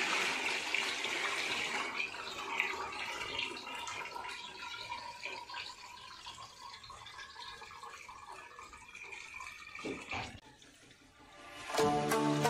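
Nitric-acid solution of dissolved silver alloy poured from a plastic bucket into a tub of water, splashing and rushing, loudest in the first couple of seconds and then tapering off. A short knock about ten seconds in.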